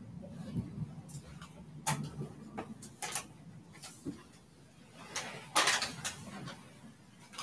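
Scattered sharp clicks and knocks in a small room over a low steady hum, the loudest cluster about five and a half seconds in.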